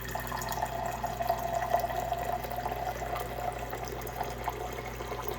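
Water running steadily from a tap, splashing with many small irregular ticks over a low steady hum. It starts and stops abruptly.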